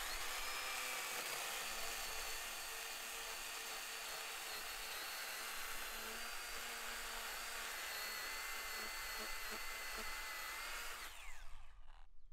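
Small battery-powered mini chainsaw running steadily as it cuts into a fallen log, its motor whining at a near-constant pitch; about eleven seconds in the trigger is released and the whine falls away as the chain spins down.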